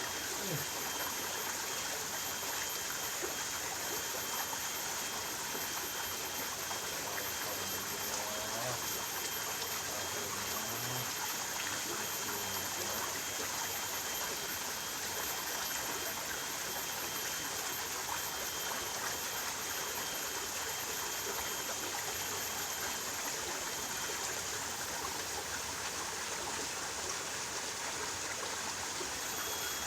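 Flowing stream water rushing steadily, with a thin, steady high-pitched tone running through it.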